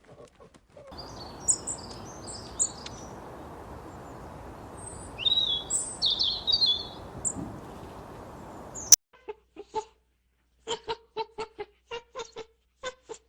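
Birds chirping in short, high calls over a steady background hiss. After an abrupt cut, a run of short, sharp knocks follows.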